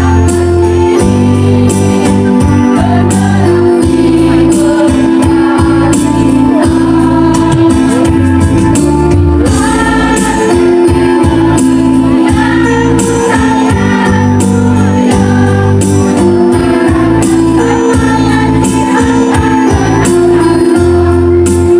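Women's choir singing together over backing music with a steady beat.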